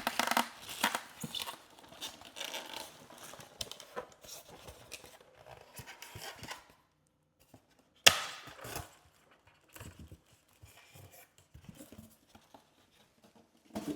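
Packaging being handled during an unboxing: rustling, crinkling and tearing of plastic and cardboard for the first several seconds, a sharp knock about eight seconds in, then lighter scattered handling noises.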